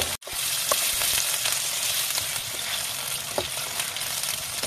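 Chicken pieces sizzling in hot oil as they are browned, stirred with a wooden spatula that knocks against the pan now and then. The sound drops out for an instant just after the start.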